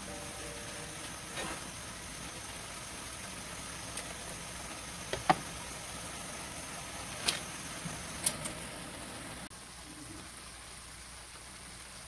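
Stir-fried noodles with pork and vegetables sizzling in a shallow pan: a steady hiss, with a few sharp pops about five, seven and eight seconds in.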